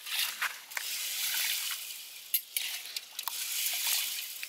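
Water dripping and splashing as handfuls of wet, washed peas are lifted from a bowl of water and dropped into a pot of water, with a few small sharp clicks.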